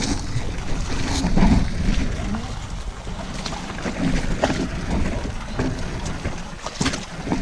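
Wind and handling rumble on an action camera's microphone, with muddy water sloshing and scattered sharp clicks and knocks; faint voices now and then.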